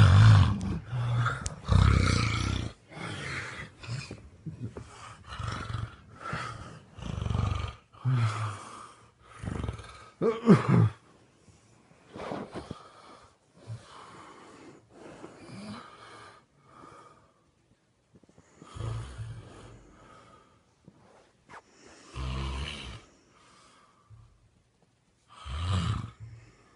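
A sleeping man snoring: a quick run of loud snores about once a second for the first ten seconds or so, then softer, more widely spaced snores with a short lull before the last few.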